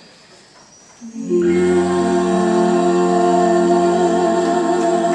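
Vocal quartet holding one long final chord of several steady notes, which comes in about a second in after a short hush.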